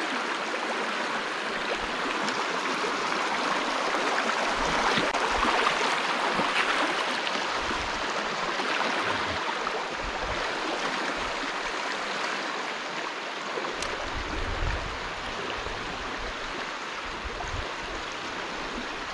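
Shallow river water running over rocks in a riffle, a steady rushing. A few low bumps come about three quarters of the way through.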